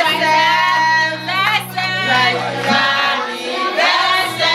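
Group singing, with women's and children's voices holding long wavering notes over a steady low instrumental note that drops out briefly about three seconds in.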